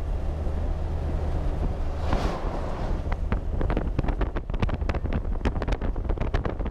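Wind buffeting a camera microphone mounted outside a 4WD at highway speed, over the steady low rumble of the vehicle and its tyres on the road. From about three seconds in, the wind comes as rapid pops.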